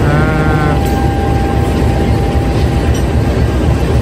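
CC 203 diesel-electric locomotive idling close by: a steady low rumble with a thin steady whine above it. A short pitched sound comes in the first second.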